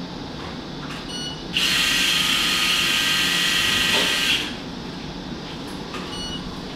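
Orthopaedic power drill running for about three seconds with a high whine, then stopping. Short electronic beeps come about a second in and again near the end.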